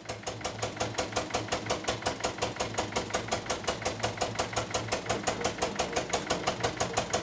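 Gasoline engine driving a sugarcane mill's gears, running with an even, regular beat of about six strokes a second.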